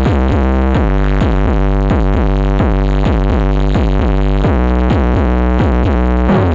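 Electronic dance music played loud through a large sound system during a sound check. It has heavy bass and a fast repeating run of falling synth tones, about four a second.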